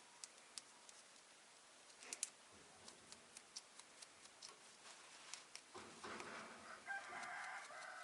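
Near silence broken by faint, scattered light clicks and ticks of small parts being handled, with a few louder clicks about two seconds in. A faint, higher-pitched warbling sound comes in near the end.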